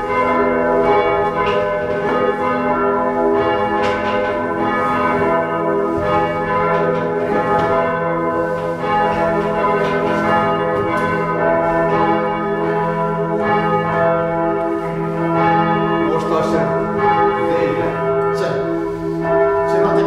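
Three bronze church bells swung by hand from ropes, ringing loudly together in a continuous, overlapping peal, with strokes following one another without a break.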